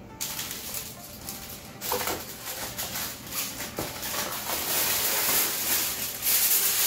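A sheet of aluminium foil being pulled from a box of foil and unrolled. It makes a crinkling rustle that grows louder through the second half, with a few small knocks as the box is handled.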